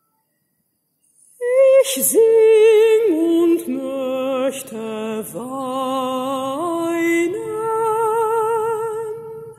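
A mezzo-soprano voice singing a slow, sustained phrase in German with a wide vibrato. It begins after a second and a half of silence, with sharp s and sch sounds between the held notes.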